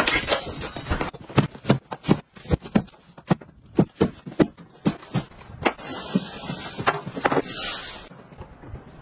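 Handling of cardboard delivery boxes and packaging: a run of irregular knocks and thuds, then a short rustling hiss a little after seven seconds as plastic wrapping is pulled off.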